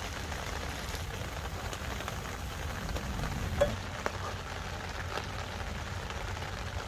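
Steady patter of rain, with two light knocks a little past the middle.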